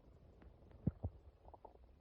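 Stomach gurgling: a faint low rumble with two short gurgling pops a little under a second in, then a few brief higher-pitched gurgles about a second and a half in.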